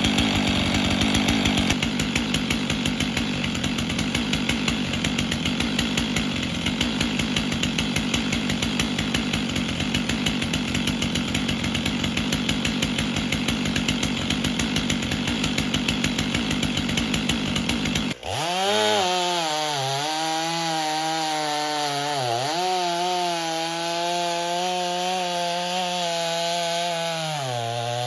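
Stihl MS 500i two-stroke chainsaw cutting logs: first a dense, rough cutting sound, then, after an abrupt change about two-thirds of the way in, a clear high engine note that dips in pitch briefly three times as the chain bites into the wood.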